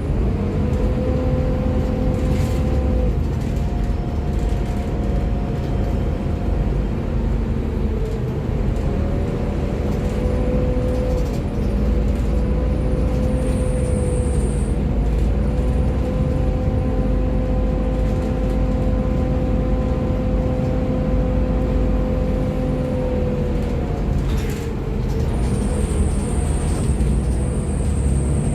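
Volvo B7TL double-decker bus on the move, heard from inside: its six-cylinder diesel and driveline running with a steady whine that steps in pitch several times as the bus changes speed, over constant road rumble.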